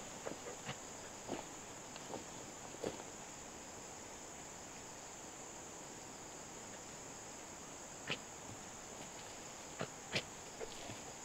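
Steady high-pitched insect chorus, typical of crickets, with a few sharp clicks or knocks scattered through it; the loudest click comes about ten seconds in.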